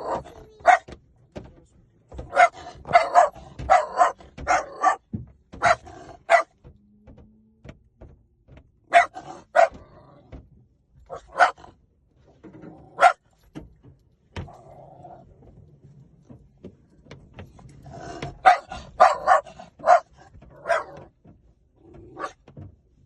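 A dog barking in clusters of several quick, sharp barks, with pauses of a few seconds between the clusters.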